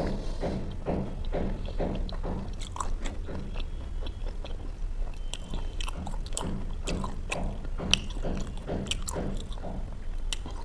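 A person chewing a mouthful of chicken and naan close to the microphone. The chews come at an even pace of about two to three a second, with wet mouth clicks and smacks, one sharper click about eight seconds in.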